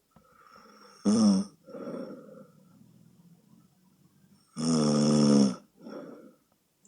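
Loud snoring from a sleeping woman with sleep apnea: two loud pitched snores on the in-breath, the second about a second long. Each is followed by a softer breath out.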